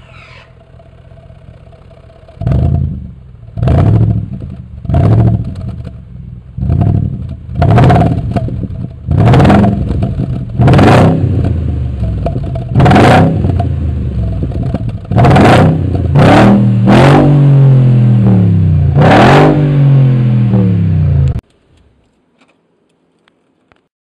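Audi A8 engine idling, then revved in about a dozen throttle blips, each rising and falling in pitch, the last few held longer and higher, until the sound cuts off suddenly near the end.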